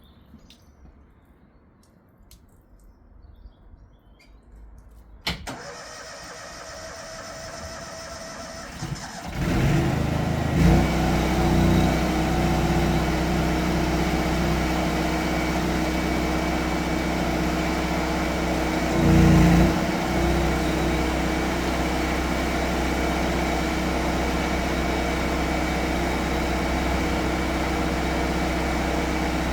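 Drain jetting machine's engine starting up: after a click about five seconds in it runs quietly, then about four seconds later it comes up to a loud, steady run, with a brief surge in level near the middle.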